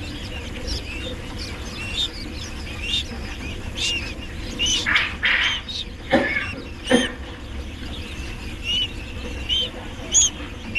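Young hatchling chicks peeping: repeated short, high chirps that rise and fall. A few louder knocks or rustles come about halfway through.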